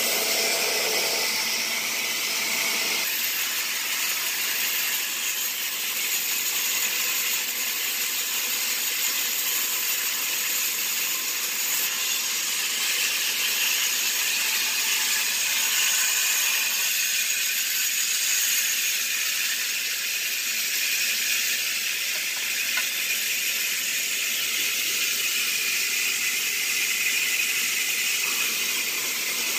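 Sawmill band saw running and cutting timber: a steady high-pitched hiss with no pauses.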